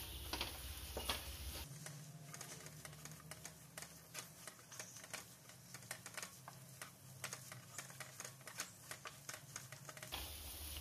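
Faint, quick, irregular clicks and scrapes of a utensil against a pan as chopped prawns are stirred into the masala.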